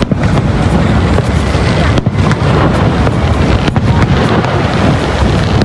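Fireworks display: shells banging and crackling at irregular intervals, several a second at times, over a steady loud rush from Niagara Falls.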